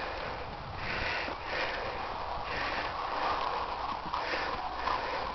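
Person walking through grass: soft, regular swishing of footsteps with breathing close to the microphone.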